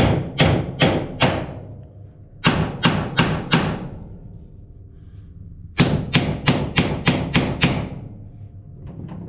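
Hammer tapping the steel drive sprockets on a John Deere 444 corn head row unit: three quick runs of metal-on-metal blows, about three a second, each ringing briefly, with two light taps near the end. The tapping is meant to loosen the sprockets on their shafts once the roll pins are out.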